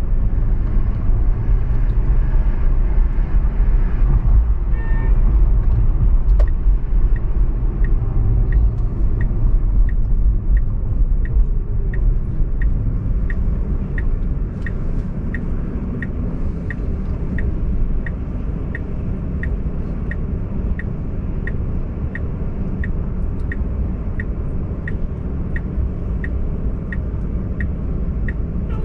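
Car driving in city traffic, with a heavy low road-and-engine rumble that quietens as it slows about halfway through. From about 7 s a steady high tick repeats almost twice a second.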